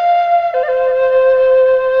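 Music: a single melody line in a flute-like tone, one long held note that steps down to a lower long note about half a second in.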